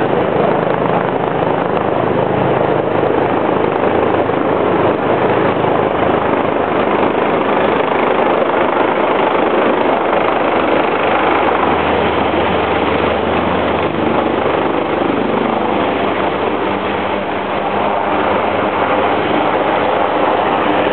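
Steady, loud, unbroken engine drone mixed with rushing wind and water, heard on deck of a moving ferry.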